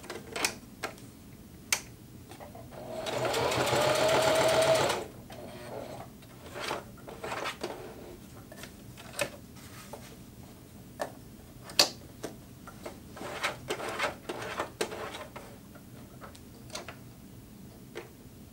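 Singer Heavy Duty HD6360M sewing machine stitching in one short run of about two seconds, starting about three seconds in, its motor whine rising slightly as it gets up to speed. Before and after it come scattered clicks and taps from the machine's dials being turned and the material being handled.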